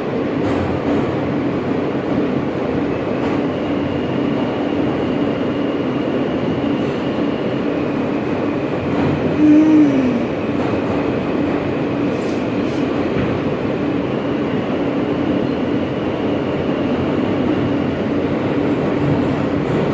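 Alstom R160A subway car running, heard from inside the car: a steady rumble of wheels on rail with a constant low hum. About halfway through, a brief tone that drops in pitch stands out as the loudest moment.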